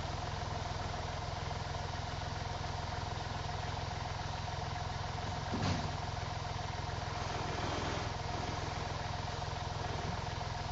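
1958 Massey Ferguson 35 tractor engine running steadily, with one short knock about halfway through.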